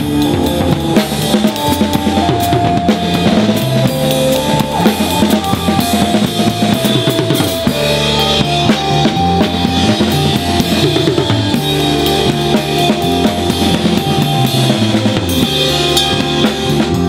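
A band playing with a full drum kit: steady kick and snare under a moving bass line and held melodic notes.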